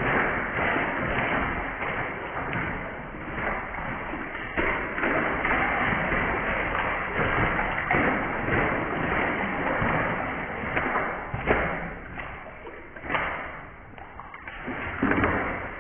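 Crow bathing in a plastic basin of water, beating its wings and ducking in: a continuous run of splashing and slaps on the water, easing off near the end with one last burst.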